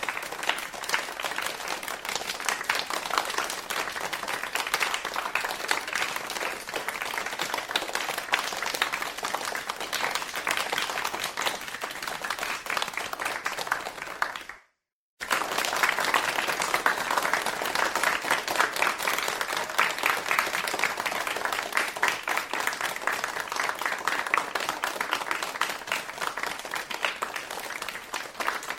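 Crowd applauding: a dense, steady patter of many hands clapping, in two separate takes with a short break of silence about halfway through.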